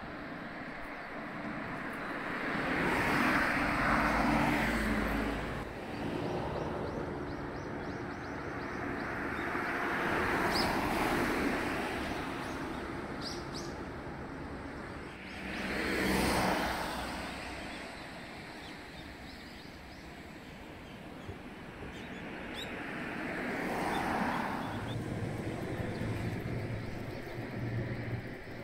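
Cars passing by on a road one after another, each swelling and fading away; about four go by, the sharpest and closest one just past the middle.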